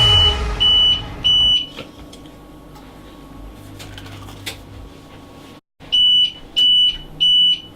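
Electronic alarm beeping: three short high-pitched beeps about two-thirds of a second apart, a pause, then four more near the end. The beeping comes with what seems to be a power cut.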